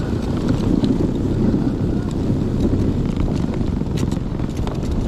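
Homebuilt tracked electric snow bike with dual NPC Black Max electric motors running through snow: a steady low rumble of the drive and tracks churning snow, with wind buffeting the microphone and a few light clicks.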